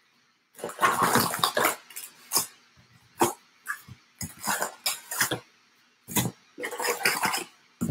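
Cardboard trading-card hobby box and its wrapped card packs being handled: packs pulled out of the box one after another, in a run of irregular rustles, scrapes and a few sharp clicks.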